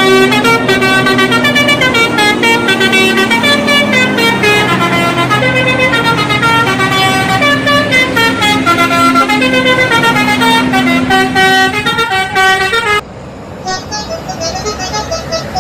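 Indonesian bus 'telolet' horn, a multi-tone horn playing a quick melody of stepping notes. It cuts off about thirteen seconds in, where a quieter, higher tooting takes over.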